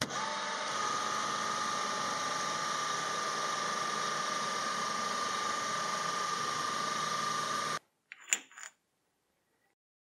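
Metal lathe running and turning down a metal bar, a stringy chip peeling off the cut: a steady whine over a hiss, its pitch rising a little as the spindle comes up to speed, then cutting off suddenly. A short metallic clink follows.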